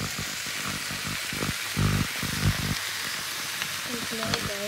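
Potatoes, carrots and shirataki noodles sizzling in a frying pan, a steady hiss, with a couple of dull knocks about two seconds in.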